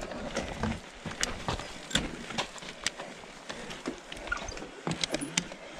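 Mountain bike on a rough dirt trail: irregular sharp clicks and knocks from the bike over a steady hiss.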